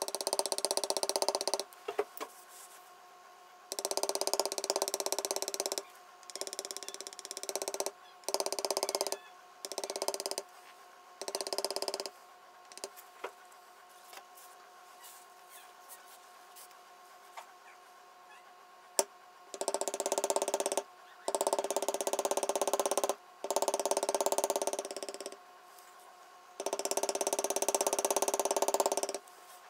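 Rapid mallet taps on a leather beveling tool as it is walked along the tooling cuts, compressing the leather beside each cut. The tapping comes in runs of one to two seconds with short pauses, and stops for several seconds in the middle.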